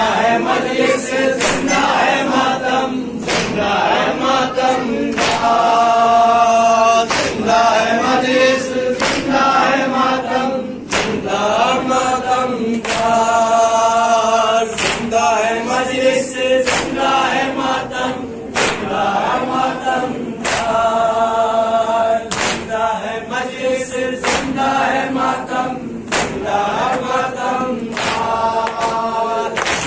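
Men chanting a Urdu noha lament in chorus, with the open-handed thump of matam, hands striking chests, in a steady rhythm beneath the voices.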